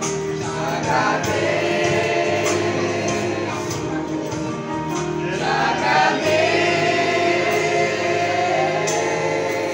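A choir of young people and children singing a gospel hymn together, accompanied by an acoustic guitar.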